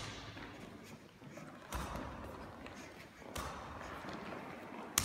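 Fist strikes landing on a training partner's body: two dull thuds about a second and a half apart, then a sharper knock near the end, each echoing in a large hall.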